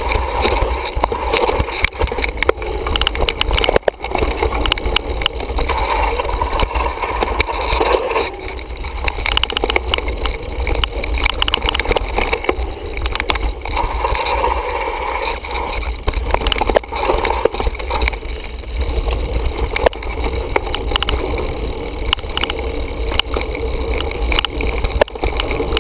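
Mountain bike riding fast down a dirt trail, heard from a handlebar-mounted camera: a steady low wind rumble on the microphone, with the tyres on dirt and leaves and a constant clatter of the bike and camera mount over bumps.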